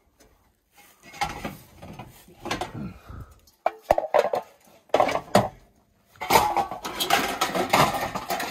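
Metal hubcaps clattering and scraping against one another as they are shifted and pulled from a packed pile, in short bursts with a sharp clank about four seconds in and a longer run of clatter near the end.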